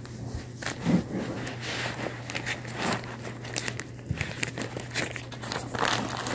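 Clear plastic bag crinkling and crackling as it is handled, in irregular bursts of rustle, over a steady low electrical hum.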